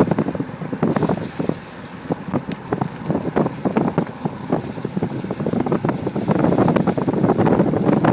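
Wind buffeting the microphone as a low rumbling rush, with many irregular small crackles and knocks through it. The rumble grows stronger toward the end.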